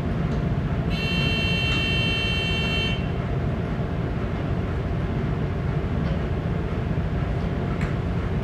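Steady low rumble of a cargo ship's engine and machinery under way. About a second in, a high electronic tone sounds for about two seconds and stops.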